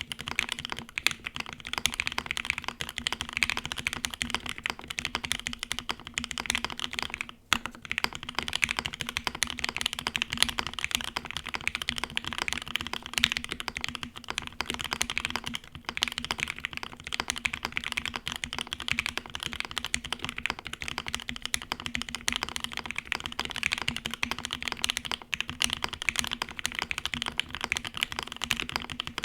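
Continuous fast typing on a gasket-mounted custom mechanical keyboard with lubed Mauve switches, GMK keycaps and an FR4 plate, a dense stream of key clacks with a brief pause about seven seconds in.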